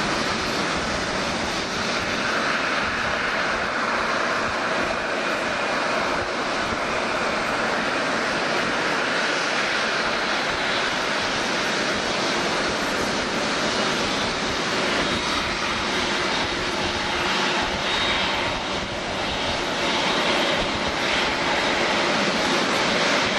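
Boeing 747-8 jet engines running at low taxi thrust: a steady, even jet rush as the airliner taxis close by.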